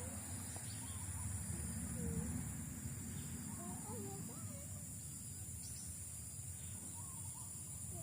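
Outdoor ambience at the water's edge: a steady, high insect chorus of crickets, with scattered short chirping calls and a low rumble underneath.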